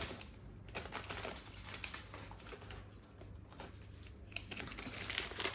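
Hands handling and unpacking small jewellery pieces and their packets: irregular light clicks and rustles.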